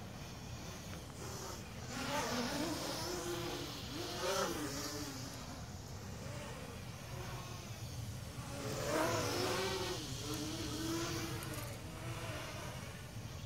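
Blade 200QX quadcopter's electric motors and propellers whirring, rising and falling in pitch and loudness several times as the throttle changes, with the biggest surges about two seconds in and again about nine seconds in.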